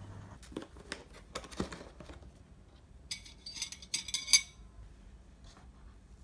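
Metal fork and knife set down on a ceramic plate: a quick run of sharp clinks about three to four and a half seconds in, after a few softer knocks earlier.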